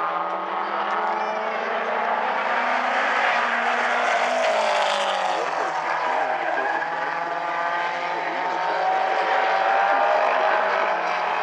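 Several mini stock race car engines running hard around the oval. Their overlapping engine notes rise and fall as the cars accelerate and lift through the turns.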